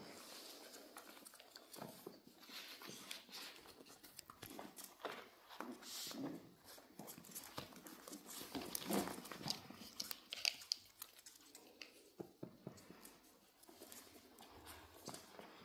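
Miniature dachshund puppies play-wrestling: irregular clicks and scuffles of paws and claws on a wood floor and rug, with a few short growls from the puppies.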